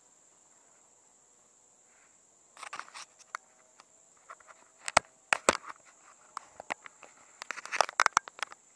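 Scattered sharp clicks and crackles of a fishing handline being held and drawn in by hand, starting a couple of seconds in and loudest in two clusters near the middle and near the end. A steady, faint, high-pitched insect drone runs underneath.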